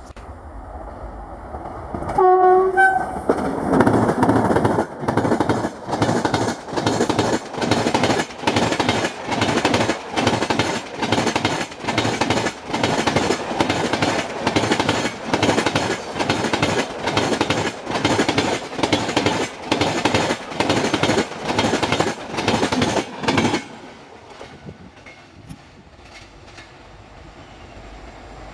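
Electric locomotive gives a short two-note horn, then a long passenger train passes at about 80 km/h. The wheels clatter over the rail joints in an even rhythm of about one and a half beats a second. The clatter stops abruptly about 23 seconds in as the last coach goes by.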